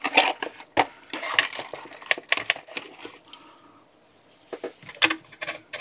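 Metal battery cells clinking and rattling against each other and on a hard surface as they are handled, in a run of sharp clinks, a short lull past the middle, then a few more clinks near the end.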